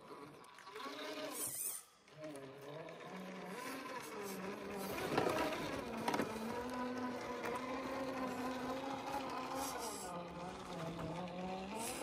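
RC rock crawler's electric motor and geared drivetrain whining as it climbs rock, the pitch stepping up and down with the throttle. The whine cuts out briefly about two seconds in.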